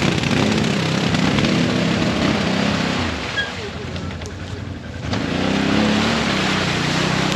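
ATV engine revving in surges as the quad churns through a muddy, water-filled creek bed, its wheels throwing mud and water. The revs ease off about three seconds in and pick up again about two seconds later.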